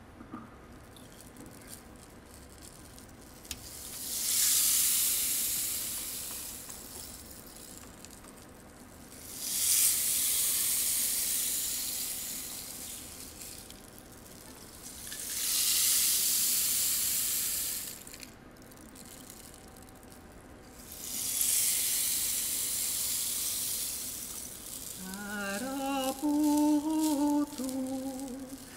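Rainstick tipped over four times, each turn a swelling hiss of trickling pellets lasting about four seconds. Near the end a woman's voice begins singing a slow melody.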